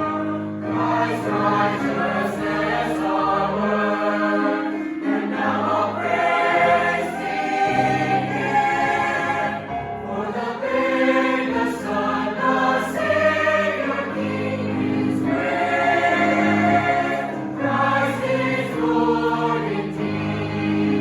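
Choir singing a Christmas hymn in several parts, moving through held chords.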